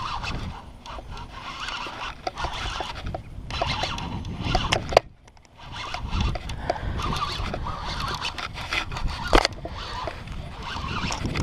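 Fishing reel and line being worked while fighting a big fish on a long run, an irregular run of small clicks and scraping with handling rustle. It drops out briefly about five seconds in.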